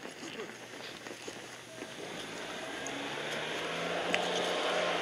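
Outdoor street ambience with a few light clicks, then a steady engine noise growing steadily louder from about two seconds in as something approaches.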